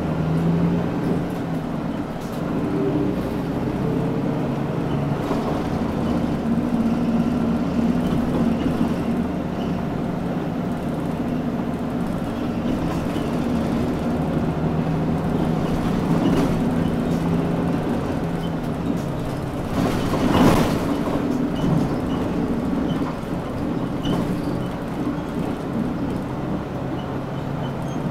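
Mitsubishi Fuso Aero Midi KK-MK27HM medium-size non-step bus running between stops, its diesel engine note rising and falling with the gears over steady road noise. A brief noisy burst comes about twenty seconds in.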